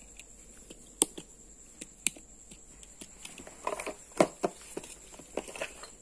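Scattered light knocks and taps: a sharp one about a second in, another about two seconds in, and a close cluster around four seconds in.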